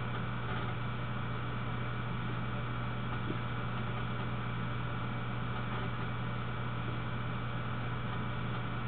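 Steady low hum with an even hiss over it, unchanging throughout, with no music or speech.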